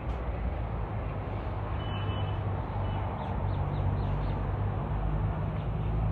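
Steady low rumble of a motor vehicle engine running, a continuous low hum over general street noise.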